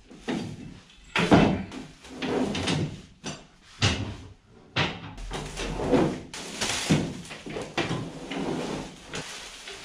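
Metal parts of a scissor lift being lifted out of a plywood shipping crate and set down on a tiled floor: an irregular series of clunks and knocks, with plastic wrapping being handled.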